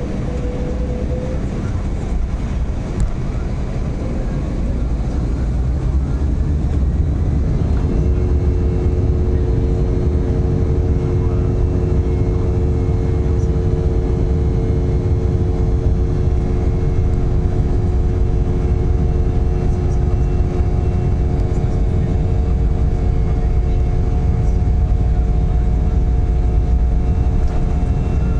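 Embraer 190 jet engines running as a loud, steady low rumble. About eight seconds in, several steady tones come in and hold as the engines settle at takeoff power.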